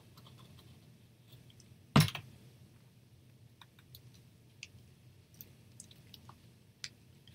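Hands handling a small metal tin and embellishments on a craft table: one loud knock about two seconds in, then scattered light clicks and taps.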